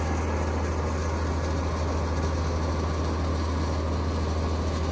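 Fuel tanker truck's diesel engine idling steadily, a low even hum, while it refuels a helicopter.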